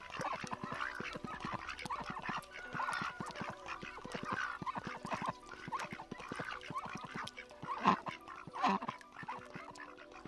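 A small group of domestic ducks quacking and chattering softly, with many short clicks. Two louder quacks come near the end.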